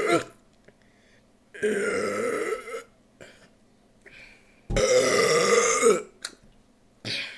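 Burps, one after another with short silent gaps between them: the tail of one at the start, two long burps of about a second each, and a short one near the end.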